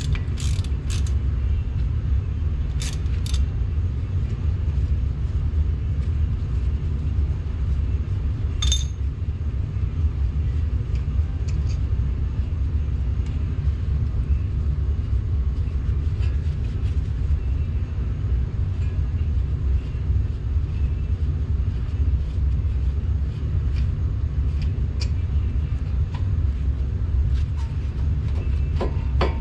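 Steady low rumble, with scattered sharp metallic clicks and clinks of hand tools as the brake caliper's slider-pin bolts are worked out.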